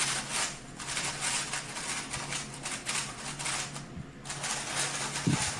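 Speedcube being turned rapidly: a fast, dense plastic clicking and clatter of the layers, with brief pauses.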